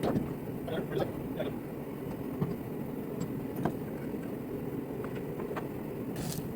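Steady low hum with a few scattered light knocks, typical of a steel ring being handled and tapped into shape at a workbench.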